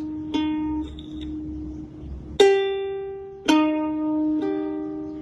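Music of a plucked string instrument, like a ukulele, playing slow single notes, each struck sharply and left to ring out.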